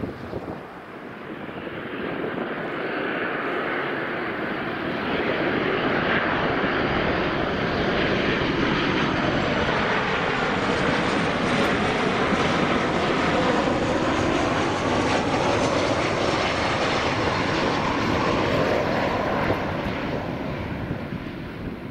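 Jet noise from a Boeing P-8A Poseidon's twin CFM56 turbofans on landing approach with its gear down: a steady rushing roar that builds over the first few seconds as the aircraft closes in, with slowly sweeping tones through it as it passes, then eases off a little near the end.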